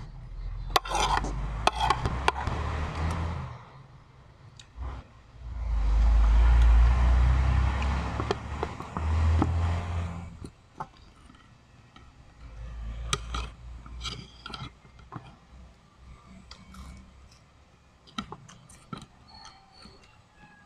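Spoon scraping and clicking on a plate during a meal, with chewing, while a louder low rumbling noise swells twice, once in the first three seconds and again from about six to ten seconds in.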